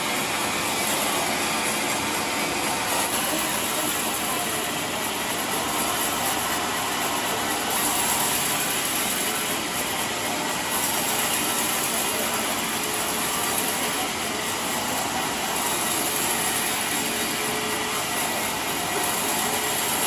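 Sawmill band saw running and cutting lengthwise through a large trembesi (rain tree) log, a loud, steady, even noise.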